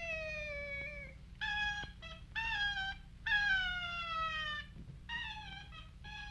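Cartoon cat meowing: a string of separate meows, each sliding down in pitch, some drawn out for about a second, over the steady hum of an old optical soundtrack.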